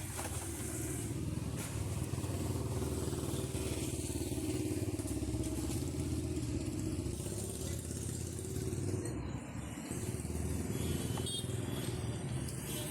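Hero Splendor motorcycle's single-cylinder engine idling steadily.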